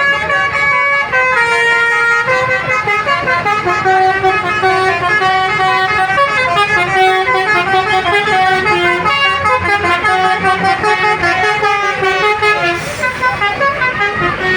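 Basuri multi-tone 'telolet' bus horn playing a melody, its notes changing quickly and sounding several at once.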